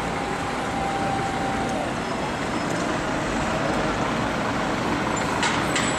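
A bus running in traffic: steady engine and road noise, with two short clicks near the end.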